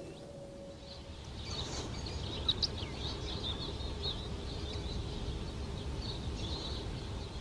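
Small birds chirping in quick, irregular calls over a steady low outdoor rumble; the chirping starts about a second and a half in.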